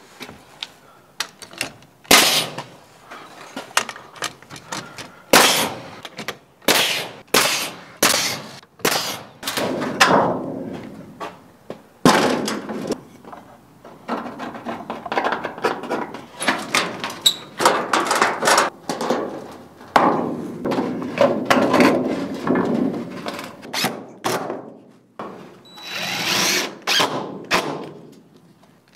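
Carpentry work fastening wood nailers to a barn girt: a run of sharp nail-driving impacts, about one every second or less, with stretches of a power drill running between them.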